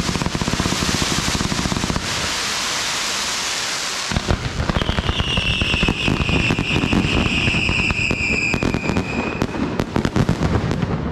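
Fireworks going off close by. First comes a dense rushing hiss from a spark fountain. From about four seconds in there is rapid crackling, with a loud high whistle over it that falls slightly in pitch and fades about nine seconds in.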